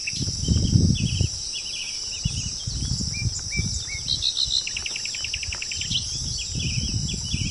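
Several birds chirping, with short calls and a quick trill about four and a half seconds in, over a steady high insect drone. Bursts of low rumble come and go, the loudest near the start.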